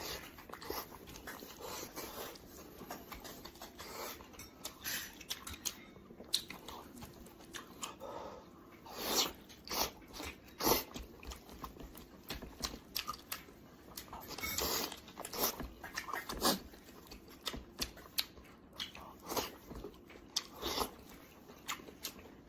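Close-miked chewing and biting on roasted pork head: irregular wet smacks and crunchy bites, busiest and loudest about halfway through and again a little later.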